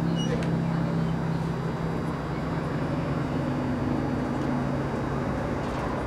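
A steady low machine hum under outdoor background noise, thinning out near the end.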